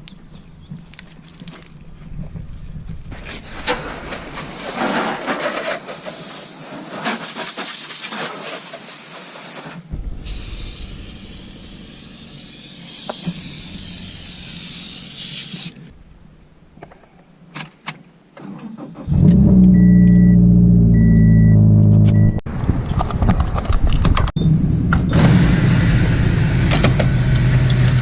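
A Scion FR-S's flat-four engine starts through a catless, non-resonated straight-pipe exhaust: a sudden loud flare on start-up while a chime beeps three times, then it settles into a steady idle. Earlier there are two long stretches of hissing noise.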